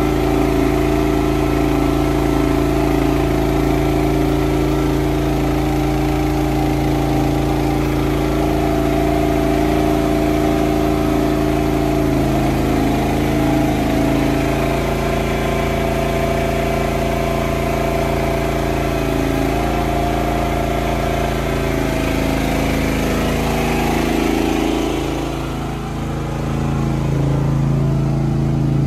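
An engine running steadily under light load, its pitch shifting a few times, with a short dip in loudness near the end.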